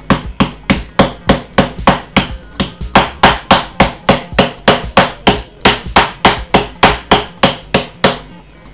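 A bunch of spring onions being beaten: a steady run of about thirty sharp whacks, roughly four a second, stopping near the end.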